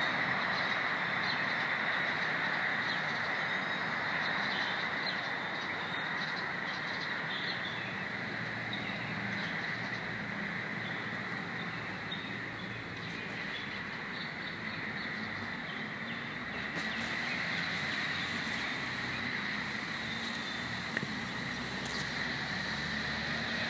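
Steady outdoor ambience: a continuous high-pitched drone over a low rumble, with a few faint high ticks near the end.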